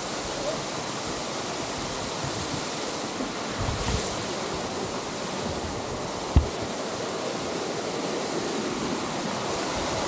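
Small waterfall splashing steadily into a rock pool, an even rush of falling water. A single short knock sounds about six seconds in.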